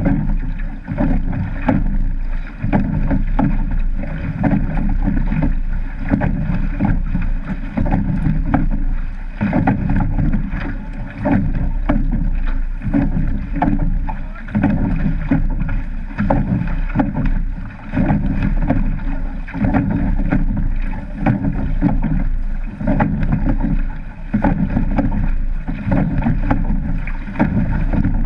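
A surf boat being rowed at sea, heard from its bow deck: a continuous rush of water and wind against the hull that swells and eases with each stroke. Frequent short knocks run through it.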